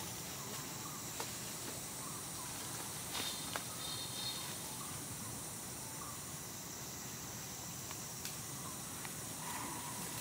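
Steady outdoor forest background hiss, with a few faint, brief chirps and a few soft clicks.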